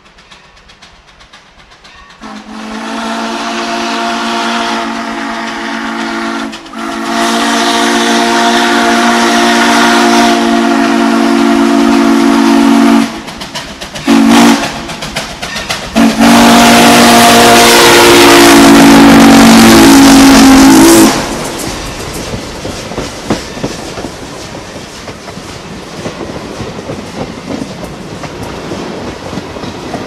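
Steam locomotive's chime whistle sounding a chord of several notes in two long blasts, one short and one long, the grade-crossing signal. Then the passenger cars roll past with the steady clatter of wheels on the rails.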